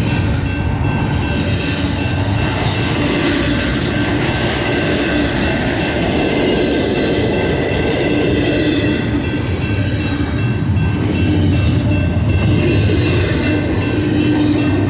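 CSX intermodal freight train rolling past on the rails: a steady, loud noise of wheels on track.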